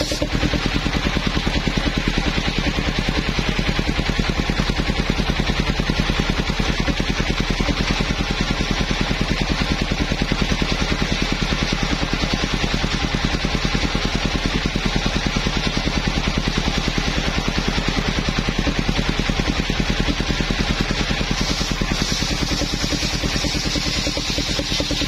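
Engine of a mobile circular sawmill running steadily with a fast, even pulse. A higher hiss joins it about 21 seconds in and runs on to the end.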